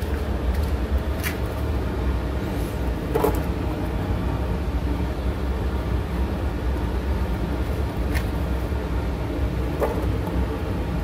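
Steady low rumble with four short, light clicks or knocks scattered through it.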